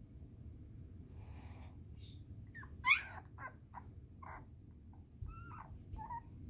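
Newborn puppy whimpering and squeaking as she drifts off to sleep: scattered short squeaks, one loud rising squeal about three seconds in, and a couple of short whines near the end.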